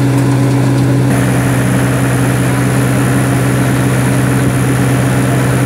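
Menta Giromix silage unloader-mixer wagon at work, its rotor cutting into the silage face and throwing chopped silage into the wagon: a loud, steady machine drone with a strong low hum. A high whine joins about a second in.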